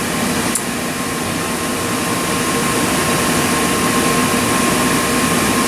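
Steady mechanical hum of a Mollart LD2-750 CNC gun drilling machine, with a thin steady whine as the Z-axis servo feed backs the drill head up toward the bushing. A single click about half a second in.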